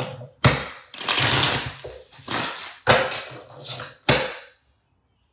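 Tarot cards being shuffled and handled: a run of sharp rustling and slapping noises, one long riffle-like rush about a second in, stopping suddenly near the end.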